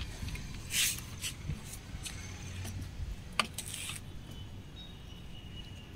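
Plastic trigger spray bottle squirting in two short hissing bursts, about a second in and again about three and a half seconds in, with a few light clicks.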